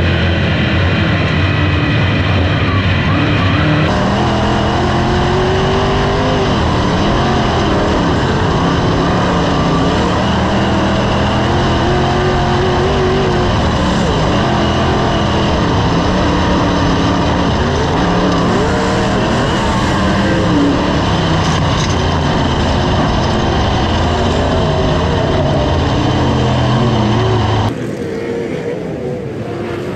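Onboard sound of a dirt-track sprint car's V8 engine at racing speed, its pitch rising and falling over and over through the laps. Near the end it cuts to a quieter, more distant sound of the sprint cars running on the track.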